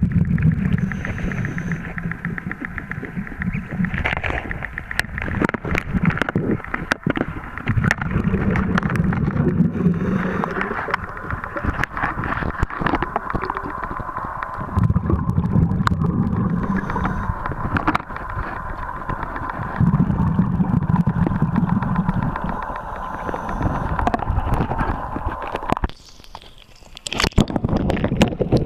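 Diver's breathing regulator heard underwater: exhaled bubbles rumbling in bursts every few seconds, with a brief lull near the end.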